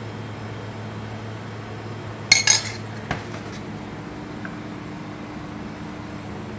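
A metal spoon clinking against metal cookware: a quick cluster of sharp clinks about two and a half seconds in and one more just after, over a steady low hum.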